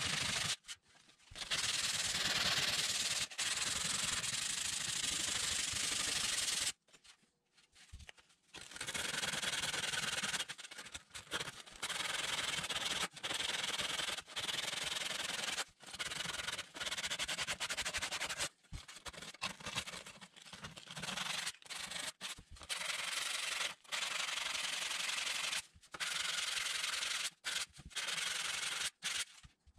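A yellow sanding pad is rubbed by hand over the rusty, pitted metal canister of a hand-crank ice cream maker, stroke after stroke, as surface rust is taken off. The rubbing runs in long stretches broken by short pauses, the longest about two seconds, near a quarter of the way through.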